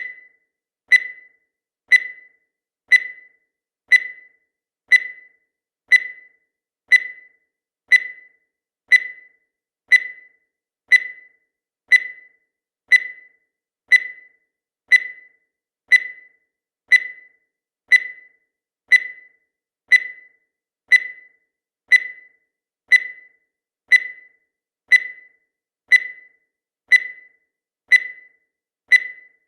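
Countdown timer sound effect: a short, high-pitched tick once every second, each dying away quickly.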